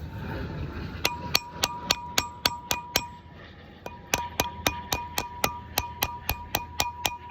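Hammer striking metal in steady taps, about three to four a second, each strike ringing; the tapping pauses for about a second partway through, then resumes.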